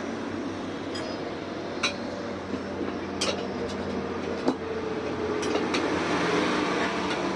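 Metal tools clinking and tapping sharply about seven times during tyre puncture repair work, over a steady mechanical hum.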